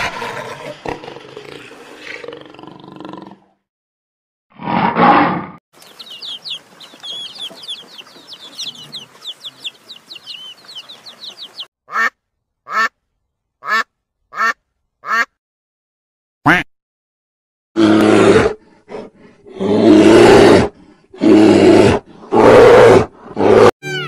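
A string of different animal and bird calls. A rough call at the start and a short call about five seconds in are followed by a run of fast, high chirps. Then come five short, sharp calls, and several loud, drawn-out calls near the end.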